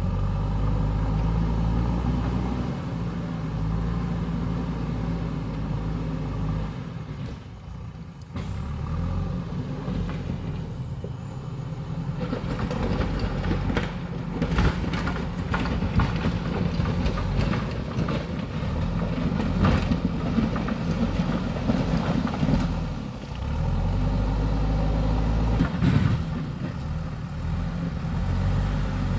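JCB backhoe loader's diesel engine running under working load, its pitch dropping briefly about a quarter of the way in and rising again. Through the middle, a run of knocks and clatter sounds over the engine.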